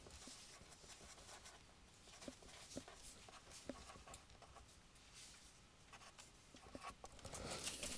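Near silence of a quiet classroom, with faint scattered taps and rustles of students writing on paper.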